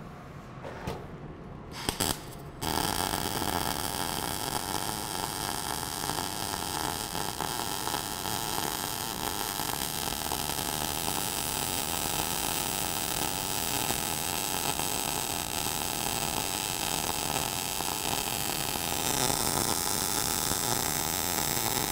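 MIG welding arc laying a fill pass on steel pipe, a steady sizzle that starts about two and a half seconds in, after a couple of short knocks. It is 0.030 ER70S-6 wire under C25 gas at 17.2 volts and 215 inches a minute, which puts the arc in short-circuit transfer.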